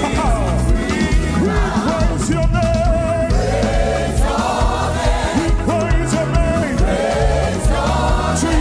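Gospel praise music: a choir singing over a band with a heavy bass line.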